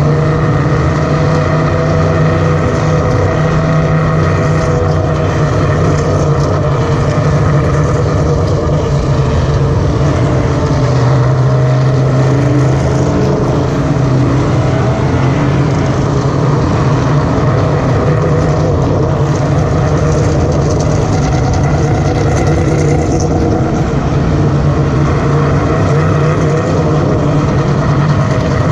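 Race car engines running at speed on the circuit as several cars go by in turn, a loud, continuous engine noise.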